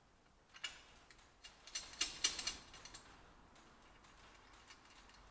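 Sharp metallic clicks and light clanks from a hand sheet-metal forming tool as it is worked and adjusted: one click a little after the start, then a quick run of ringing clicks about two seconds in.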